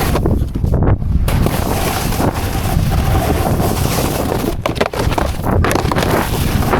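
Wind buffeting a helmet-mounted action-camera microphone while snowboarding: a loud, steady rumbling rush with brief dips.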